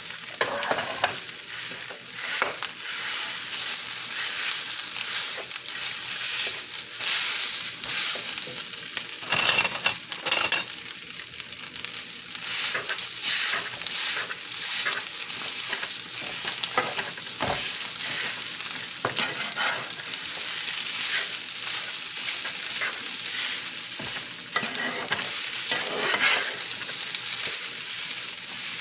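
Food sizzling steadily as it fries in a pan, stirred throughout, with frequent short scrapes and clinks of the utensil against the pan, loudest in bunches about a third of the way in and near the end.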